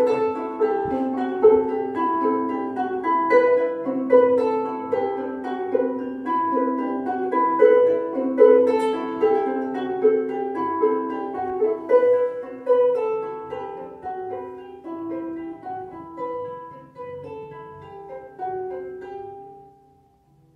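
Two ukuleles played together: a plucked tune of quick notes that slows and thins out, the last notes fading away near the end.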